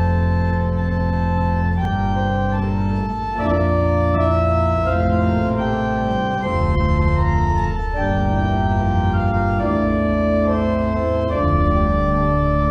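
Organ playing a slow piece of held chords over a deep sustained bass, the chords changing every second or two.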